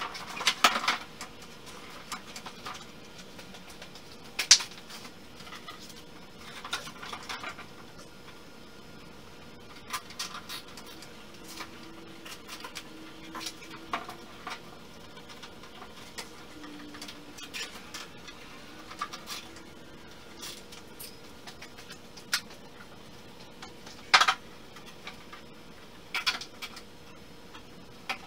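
Scattered light clicks, knocks and scrapes of thin plywood stringers and bulkhead panels being handled and fitted, with a few sharper knocks at irregular intervals.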